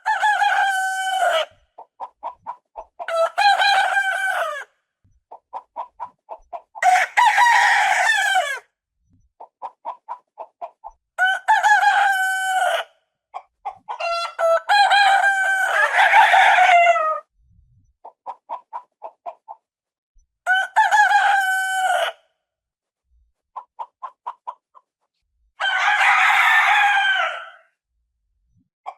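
Rooster crowing: about seven long cock-a-doodle-doo calls. Between them come short runs of quick clucks.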